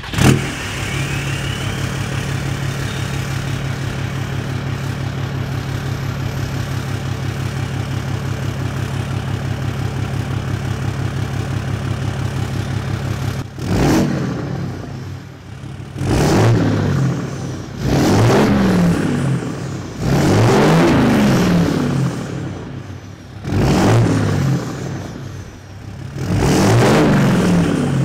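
Ram pickup truck engine idling steadily through its side-exit exhaust, then revved about six times from about halfway through, each rev rising and falling in pitch.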